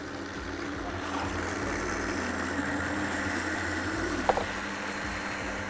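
Stand-mixer blender attachment running steadily, turned up a little, churning unsalted anari cheese with a splash of water into a smooth paste. A short knock about four seconds in.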